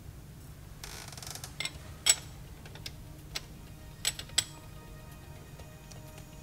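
Ratchet and socket working the lock nut on a VW PD diesel injector rocker adjuster: a short burst of ratchet clicking about a second in, then several sharp metallic clicks of the tool. A low steady hum runs underneath.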